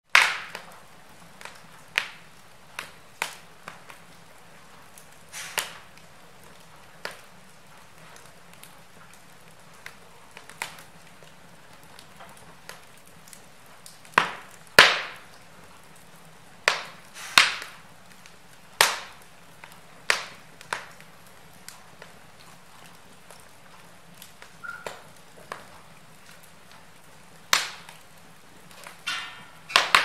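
Wood fire of burning logs crackling in a fireplace: irregular sharp pops and snaps, a few every couple of seconds, over a faint steady hiss. The loudest pops come about halfway through.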